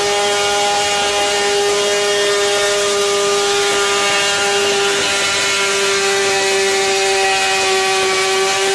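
Motorcycle engine held at steady high revs, a constant high-pitched whine with a stack of overtones and no change in pitch.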